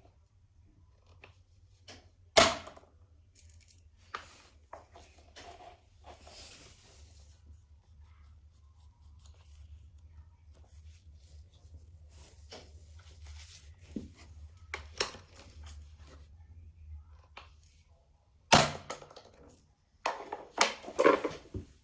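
Packaging being handled and torn open, with rustling and scraping, and a few sharp knocks and clatters: one about two seconds in, then a burst of several near the end.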